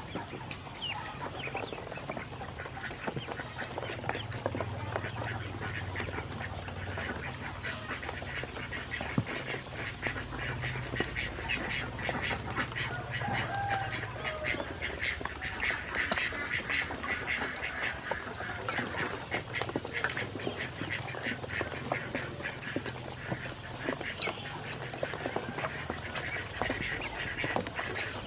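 Ducklings peeping and dabbling their bills in a plastic basin of water as they feed: a busy patter of small clicks and splashes, densest in the middle, with scattered short calls.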